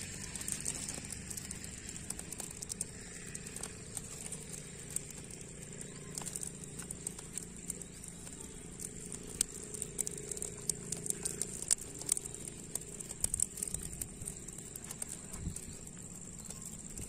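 Open wood fire crackling, with irregular sharp clicks and pops as pearl millet heads roast in the flames, over a steady high hiss.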